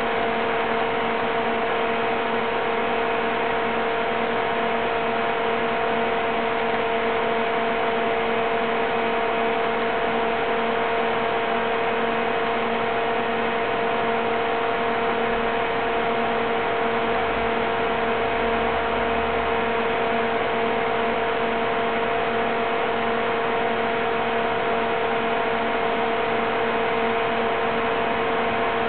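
Yaskawa AC servo motor energised and slowly turning its shaft, giving a steady electrical hum with several fixed whining tones over a hiss.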